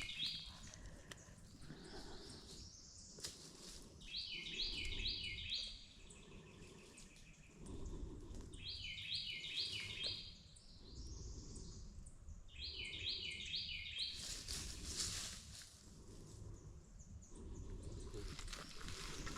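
A songbird repeating a short song of four or five quick notes, about once every four seconds. Rustling runs underneath, with a louder rustle near the end.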